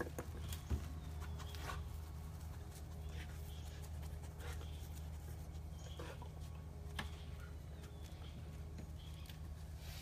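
A dog moving about: faint scattered taps of its feet, with a thump just under a second in and a click about seven seconds in, over a steady low hum.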